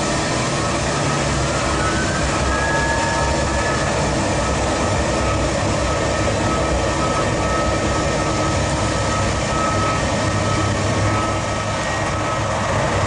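Jet airliner engines running steadily, a high whine over a broad rush of noise, with a second whine rising in pitch about two seconds in.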